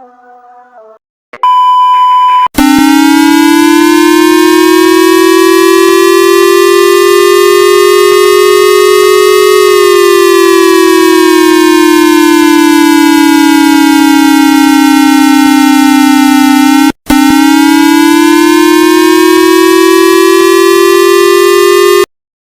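Loud synthesized siren wail for a mock emergency alert broadcast: a buzzy electronic tone that slowly rises, falls and rises again in pitch. It is led in by about a second of steady beep, breaks off for an instant about three-quarters of the way through, and cuts off abruptly near the end.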